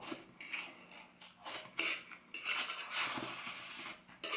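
Metal fork tapping and scraping on a wooden cutting board while scooping up rice: a run of short taps, then a longer scrape in the second half, with chewing between.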